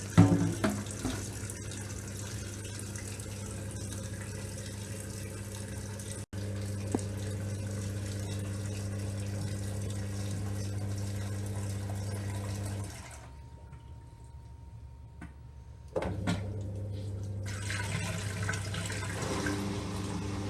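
LG 6.5 kg washing machine filling with water: rushing water over a steady hum, with a knock right at the start. The fill sound drops away for about three seconds near two-thirds of the way through, then comes back.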